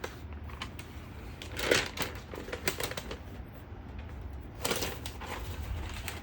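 Unboxing handling noises: scattered light clicks and taps, with two short rustling swishes, about two seconds in and again near five seconds.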